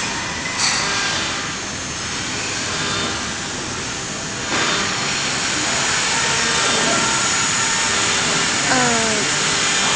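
CNC router's X, Y and Z axis drives running as the gantry and spindle head travel back to the home corner after the go-to-home command. A steady mechanical whir that shifts about half a second in and again about four and a half seconds in.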